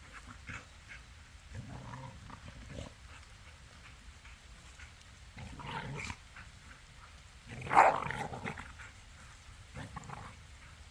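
Kangal dogs making noise in rough play, in short irregular bursts with quiet gaps between them. The loudest burst comes about eight seconds in.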